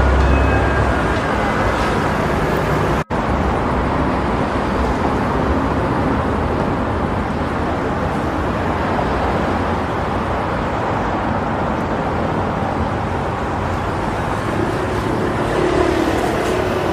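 City street ambience: a steady wash of road traffic noise, with a heavier low rumble at the start. The sound cuts out for an instant about three seconds in.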